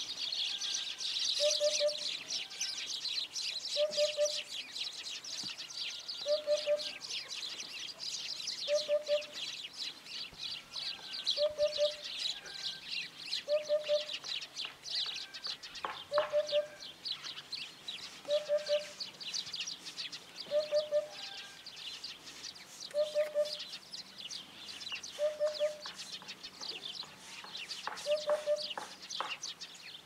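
Eurasian hoopoe (Upupa epops) giving its courtship song: a soft, low triple 'hoop-hoop-hoop' repeated about every two and a half seconds, a dozen times. Behind it runs a dense, fast high chirping.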